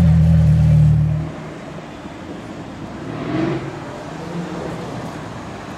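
McLaren Senna's twin-turbo V8 idling with a steady low drone that cuts off abruptly about a second in. After that comes quieter street traffic noise as a Lamborghini Urus drives up, its engine swelling briefly near the middle.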